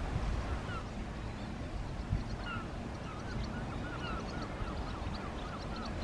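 Wind buffeting the microphone as a steady low rumble. From about two and a half seconds in, a bird gives a quick series of short calls, about three a second, with a few single calls before it.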